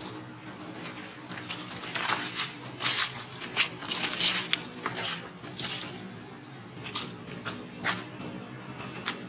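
Irregular short crackles and rustles of dry leaves and ground litter, as a monkey moves over them.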